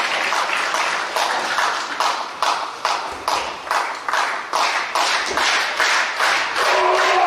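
Wrestling crowd clapping in unison, a steady beat of about two and a half claps a second over general crowd noise. A voice shouts near the end.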